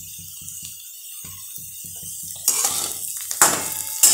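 A metal spatula stirs and scrapes masala-coated boiled potato pieces around a metal pan. The stirring starts a little past halfway in, with a couple of sharp clanks of the spatula against the pan.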